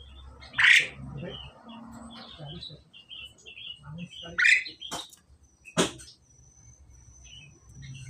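Asian pied starlings calling in a cage: loud, short, harsh calls about a second in and again at about four and a half seconds, with softer chattering between. A sharp click comes near six seconds.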